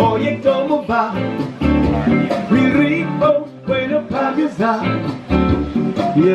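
A song with a singer over guitar.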